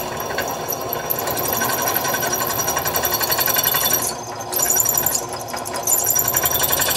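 Benchtop drill press running with its bit cutting down through a broken bolt in a tractor's exhaust manifold. A high squeal from the cut drops out briefly twice, a little past the middle, then returns.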